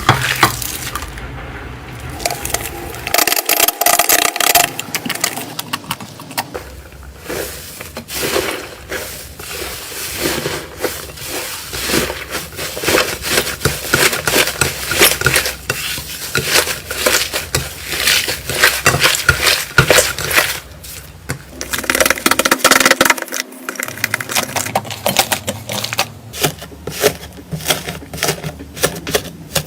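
Slime being squeezed, pressed and poked by hand, giving dense crackling and popping clicks that change in texture several times.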